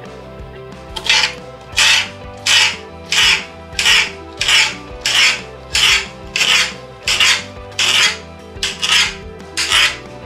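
A kitchen knife slicing thinly through prickly pear cactus pads, a short rasping stroke about three times every two seconds, starting about a second in. Background music plays under it.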